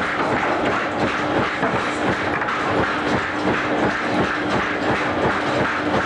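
Running workshop machinery: a steady, rapid clatter of small knocks over noise, with a constant hum.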